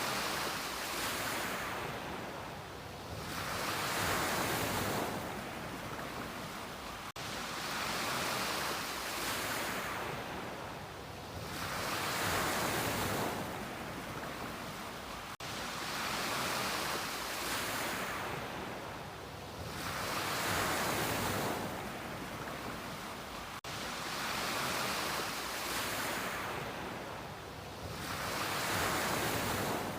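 Ocean waves breaking and washing up a beach, the surf swelling and fading about every four seconds.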